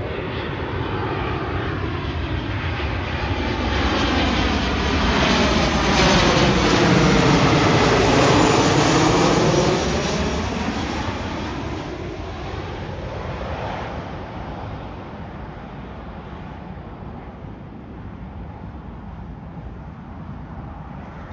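Jet airliner passing close by. The engine roar builds to its loudest about six to nine seconds in, sweeping in pitch as it goes over, then slowly fades away.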